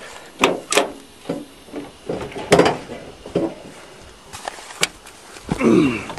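Car door being opened by its handle: latch clicks, then a string of knocks and bumps as someone climbs into the driver's seat, the loudest about two and a half seconds in. A short falling creak follows near the end.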